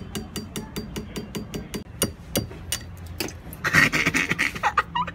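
Rapid, even ticking, about five ticks a second, that stops about two seconds in, followed by a few louder knocks and brief voices near the end.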